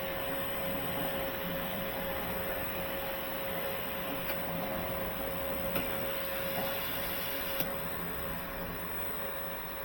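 Steady mechanical hum of the water treatment plant's pump and water flow, with a constant mid-pitched whine and a few light clicks.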